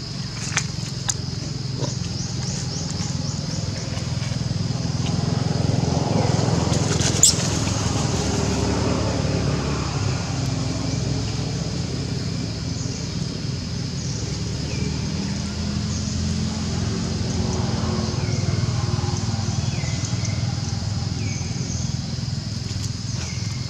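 Outdoor ambience: a continuous low rumble of passing traffic that swells twice, under a steady high-pitched drone. A sharp click comes about seven seconds in, and a few short chirps in the second half.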